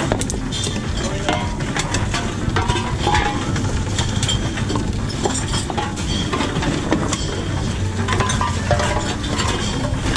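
Empty cans and bottles clattering and clinking in a dense, irregular stream as they are fed through a container-deposit reverse vending machine, over the machine's steady low motor hum.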